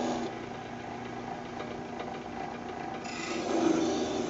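Hacksaw blade held against a shotshell crimp die spinning in a drill press, scraping and rasping as it slowly cuts the part, over the steady hum of the drill press. The scraping gets louder and brighter about three seconds in.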